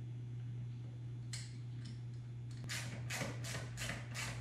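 Socket ratchet tightening nuts onto a wind-screen bracket: a single click about a second in, then from a little past halfway a run of short ratcheting strokes, roughly three a second.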